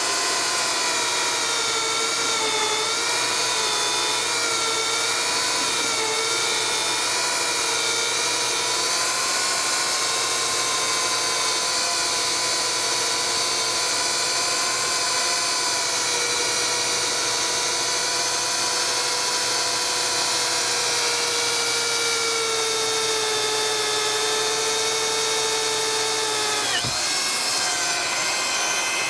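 Two power drills driving hole saws (the Lenox Speed Slot and the previous-generation Lenox) cut side by side down through 2x lumber, a steady drill-motor whine under load that wavers slightly in pitch. Near the end the pitch drops sharply for a moment.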